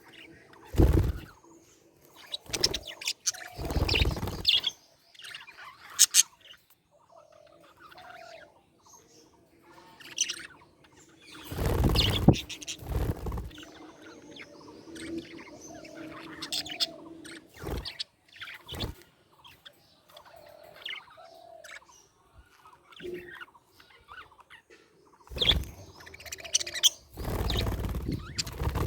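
Budgerigars chirping and chattering in short high calls throughout, broken several times by louder bursts of noise lasting a second or two.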